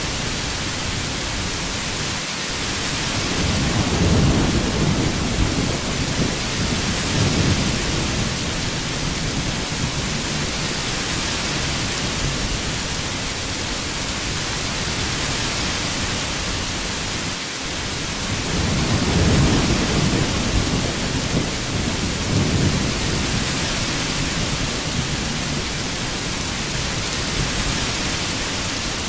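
Heavy rain falling steadily, with a low rumble of thunder rolling in about three seconds in and again about eighteen seconds in, each lasting several seconds.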